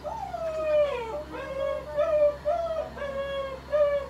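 A domestic cat meowing over and over. It gives one long cry that rises and then falls, followed by a string of shorter cries about every half second.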